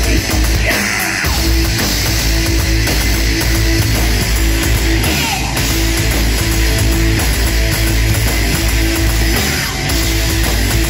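Live industrial rock band playing loud: electric guitar and keyboards over drums and a steady low beat.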